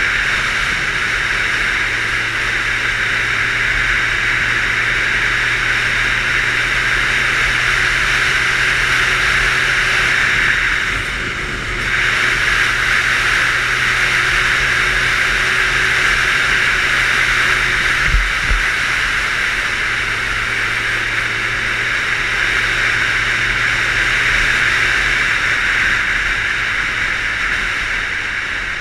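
A 600 cc motorcycle cruising at a steady speed, heard from a helmet camera: a steady engine hum under loud wind rush. The level drops briefly about eleven seconds in, and there is a single thump about eighteen seconds in.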